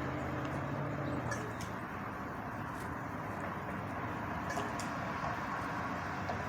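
Steady outdoor background rumble like distant traffic, with a low hum that fades out about two seconds in. A few faint, very short ticks sound now and then.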